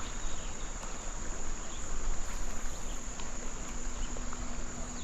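Insects droning steadily at one high pitch, unbroken throughout, over a constant even hiss.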